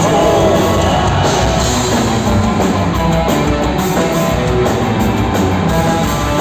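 Rock band playing live: guitars and drums in an instrumental passage, with no singing.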